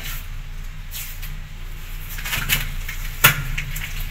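Scattered scrapes and light knocks of cement mortar being worked by hand onto bricks, with one sharp knock about three seconds in, over a steady low hum.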